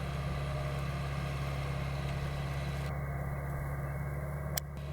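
Diesel engine of an LS Tractor P80R running steadily under load while pulling a five-shank JAN Jumbo Matic implement. A single sharp click comes near the end.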